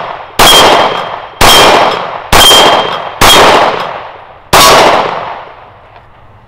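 Five shots from a Glock 30 SF .45 ACP pistol, about one a second with a slightly longer gap before the last, each followed by a short ring from steel plate targets being hit.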